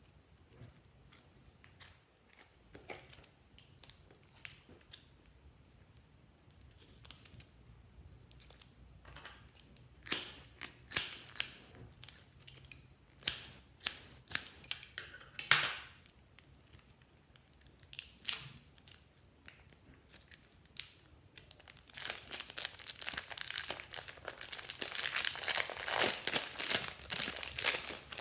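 Crinkling, crackling handling sounds. Scattered crackles and clicks give way to a dense, continuous crinkling for the last six seconds or so.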